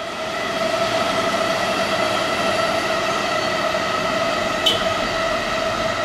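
Keikyu 1000-series electric train approaching, a steady whine of several even tones over running rumble that swells in the first second. A brief sharp click just under five seconds in.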